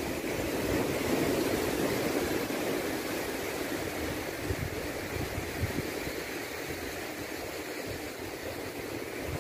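Sea surf washing and breaking against shoreline rocks, a steady rushing wash, with wind buffeting the microphone in low, uneven rumbles.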